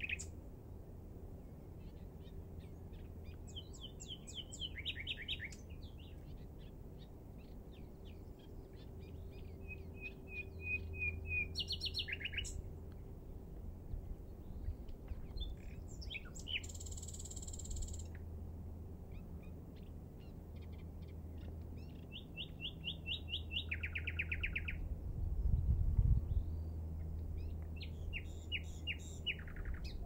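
Common nightingale singing: separate phrases of rapidly repeated notes, a drawn-out whistle and a buzzy note, with pauses of a few seconds between them. A low rumble runs underneath and swells briefly about three-quarters of the way through.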